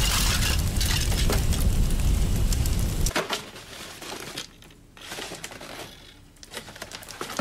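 A large fire burning, with a low rumble and dense sharp crackling. It cuts off abruptly about three seconds in, leaving only faint scattered clicks and rustles.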